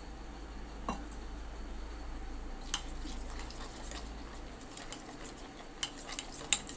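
A spoon stirring gram flour and water into a paste in a stainless steel bowl, with a handful of sharp clinks of the spoon against the bowl: one about a second in, a louder one near the middle, and several close together near the end.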